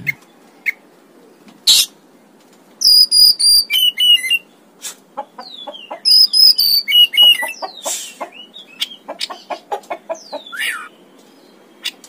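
Oriental magpie-robin (kacer) singing: loud, clear whistled phrases about three seconds in and again around six seconds in, mixed with sharp single notes and quick chattering calls.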